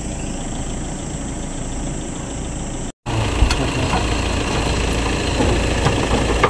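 A vehicle's engine running with a steady rumble. The sound drops out for an instant about three seconds in, then comes back louder, with a few short knocks and rattles.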